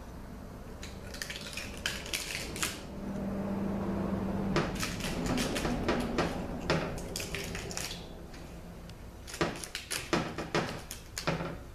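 Metal clinking and scraping as a Ford AOD transmission valve body and its separator plate and gaskets are lifted apart and handled on a metal workbench, in three spells of light knocks and clicks.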